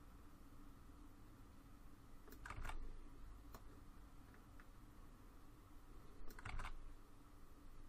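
Faint computer keyboard and mouse clicks: two quick clusters of key presses, about two and a half and six and a half seconds in, with a few single clicks between, over a low steady hum.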